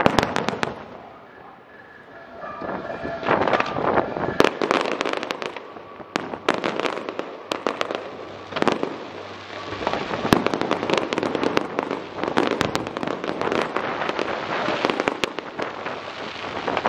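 Aerial fireworks display: many shells bursting in rapid, overlapping bangs and crackles. There is a short lull about a second in, then the barrage builds again and stays dense.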